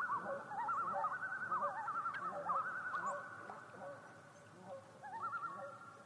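Several common loons giving rapid wavering tremolo calls, overlapping at different pitches. The calls thin out about halfway through, and one more tremolo comes near the end.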